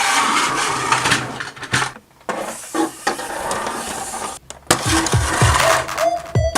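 Noisy rattling and scraping of plastic toy pieces being pushed and scooped by toy construction vehicles. About two-thirds of the way through, electronic music with repeated deep falling bass notes starts.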